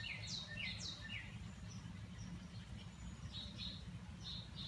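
Songbird calling: a quick series of downslurred whistled notes at about two a second for the first second or so, then a few short high notes near the end, over a steady low background rumble.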